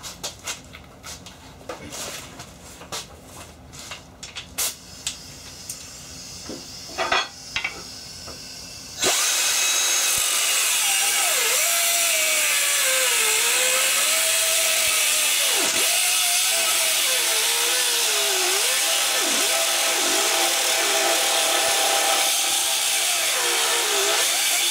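A few knocks and clicks as a metal bed-base bar is handled, then about nine seconds in a power tool starts cutting through the metal bar and runs loudly to the end, its motor pitch wavering and dipping as it bites into the metal.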